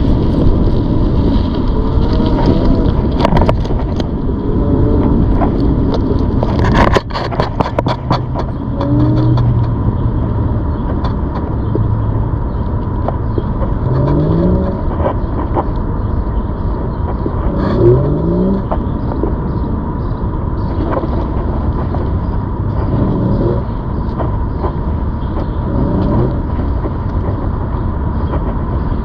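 Loud, steady rumble of riding along on a ZOOZ electric bike, with a constant thin whine. There is a burst of clattering about seven seconds in, and several short rising whines later on.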